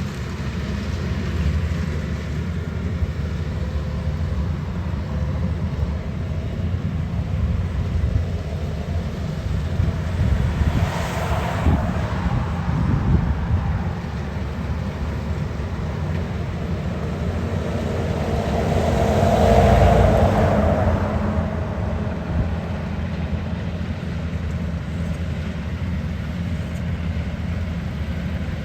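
Engine of farm machinery running steadily, swelling louder twice, briefly about a third of the way in and more strongly about two-thirds through.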